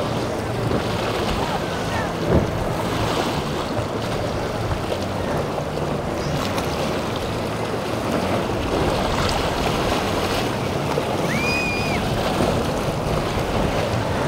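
Steady rush of surf and wind at a rough ocean inlet, with boat engines running low underneath. A brief thump comes about two seconds in, and a short high whistle near the end.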